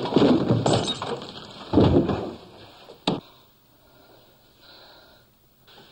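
Fist-fight sound effects: scuffling and thuds of blows and bodies, a loud thump near two seconds and a single sharp crack about three seconds in, then it drops to near quiet.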